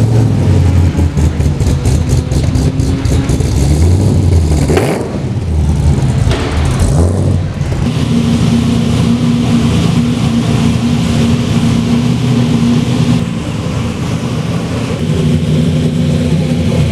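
Racing-car V8 engine sound: an idle broken by two quick revs in the first half, the first with a supercharged LS7 V8 in a modified VF Commodore. From about halfway it settles into a steady idle.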